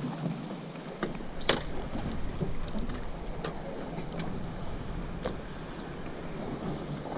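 Wind buffeting the microphone and water washing against the hull of a drifting fishing boat, with a handful of short sharp clicks and knocks, the loudest about one and a half seconds in.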